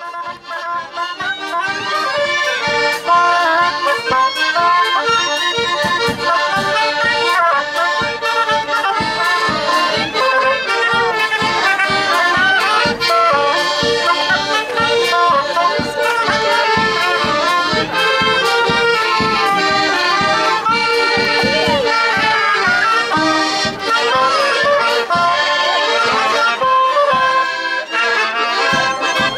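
Accordion-led folk dance music with a steady, brisk beat, fading in over the first two seconds.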